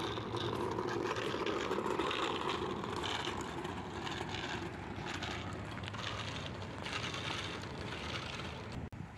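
Gravel crunching under a child's small bike with training wheels rolling along a gravel path, mixed with the footsteps of someone walking behind on the same gravel.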